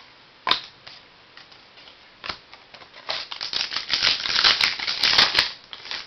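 A 2005 Donruss Diamond Kings card pack being torn open, its wrapper crinkling and crackling. Two single clicks come first, then a dense crackle from about three seconds in that stops about half a second before the end.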